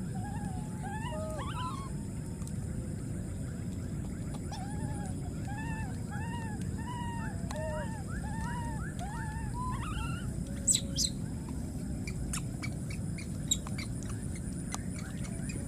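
Baby macaque giving a run of short, arching calls, nearly two a second for several seconds, over a steady low background noise. A few sharp clicks come a little after the calls stop.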